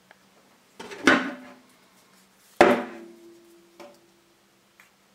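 Tin snips and a short piece of copper pipe being picked up and handled on a wooden tabletop: two sharp metal clunks about a second apart, the second followed by a brief ring, then a couple of light clicks.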